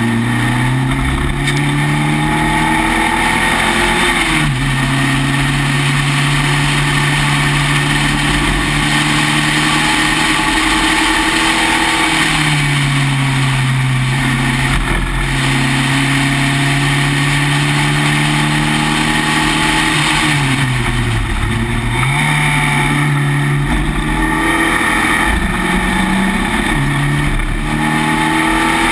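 Spec Racer Ford's four-cylinder engine running hard under race load from the open cockpit, with wind rushing past. The revs hold steady for long stretches, fall sharply three times as the car slows for corners, and climb again in steps near the end as it accelerates onto the straight.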